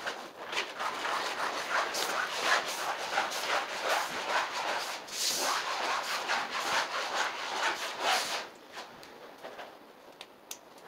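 Repeated rubbing and scraping strokes of hands and cloth on vinyl sheet flooring, about two a second, as the sheet is laid and smoothed. The strokes stop about eight seconds in, leaving a few light taps.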